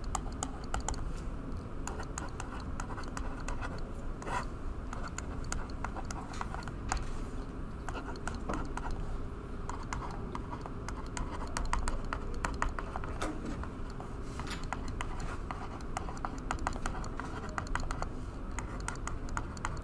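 Stylus pen tapping and scratching on a touchscreen as words are handwritten, giving irregular quick clicks over a low steady room hum.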